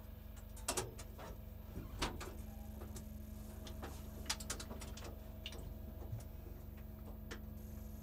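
Scattered clicks and knocks inside a parked race car's cockpit as the driver climbs out with the engine off, over a steady low hum.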